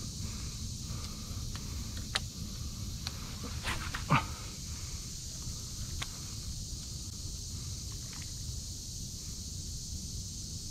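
A short animal call that falls steeply in pitch about four seconds in, with a few sharp clicks a second or two before it, over a steady high hiss and low rumble.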